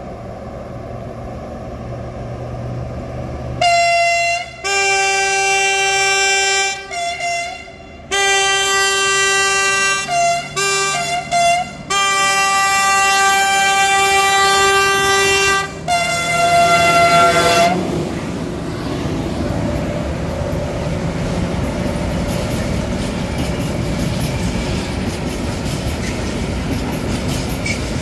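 M62 diesel locomotive pulling away with its two-stroke V12 diesel working hard. From about four seconds in, its horns give a long series of loud blasts in shifting two-note chords, broken by short gaps, for about fourteen seconds. Then the locomotive and its tank wagons pass close by with a steady running-gear rumble and wheels clacking over the rail joints.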